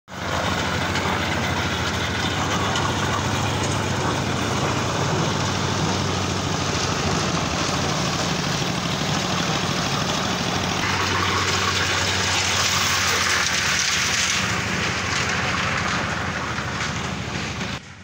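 Drum concrete mixer running, powered by a single-cylinder diesel engine: a steady engine drone under the churning of the concrete mix in the turning drum. The churning grows brighter and louder about eleven seconds in, and the sound cuts off just before the end.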